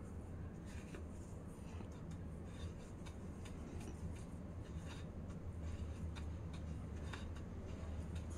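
Dry, raw broken vermicelli rustling and crackling faintly as a hand sprinkles it over an egg-dipped kebab patty and presses it on, with scattered light ticks. A steady low hum runs underneath.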